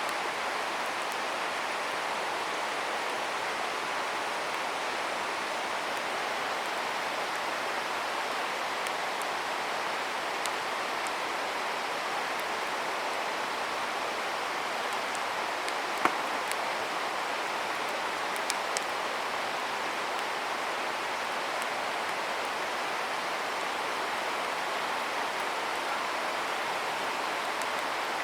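Campfire burning with a steady hiss, broken by a few sharp pops and crackles, the loudest a little past halfway.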